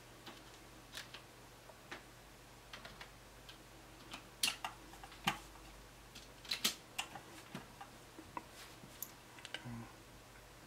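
Faint, irregular clicking of a computer mouse and keyboard keys, a dozen or so separate clicks, with a few louder ones around the middle.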